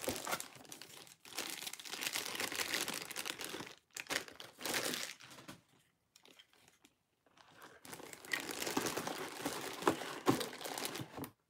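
Clear plastic toy packaging bags crinkling and rustling as the toy pieces are unwrapped, in long stretches with a pause of about two seconds in the middle.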